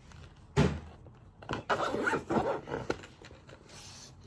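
A glasses case being handled as glasses are put away in it: a sharp knock about half a second in, then a second or so of scraping and rustling.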